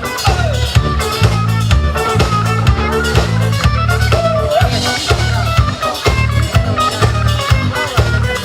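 Band music with no singing: electric guitar lead lines with bends over bass and a steady drum-kit beat.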